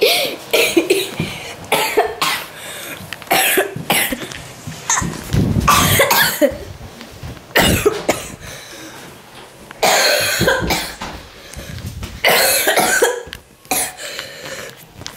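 A boy's coughing fit, set off by a glass of cola: many coughs in irregular clusters with short gaps between them.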